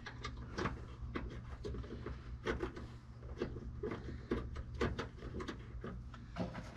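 Small irregular clicks and taps of metal hardware: the new tailgate check arm and its bolt being handled and lined up on a Jeep Wrangler JK tailgate. A steady low hum runs underneath.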